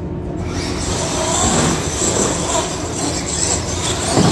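Radio-controlled monster trucks launching and racing on a carpet track: a high motor whine and a rush of tyres that starts about half a second in and builds, loudest as one truck passes close near the end.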